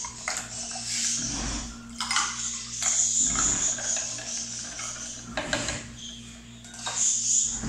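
Plastic ladle scooping iced lime water from a plastic jar and pouring it into a glass, several times: ice clinking against the ladle and jar, liquid splashing into the glass.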